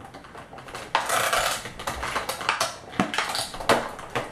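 Plastic toy packaging being cut and worked open with scissors: irregular sharp clicks and snips, with a stretch of crinkling about a second in.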